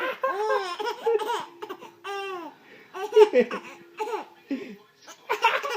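A four-month-old baby laughing in about six short bursts of high-pitched laughter.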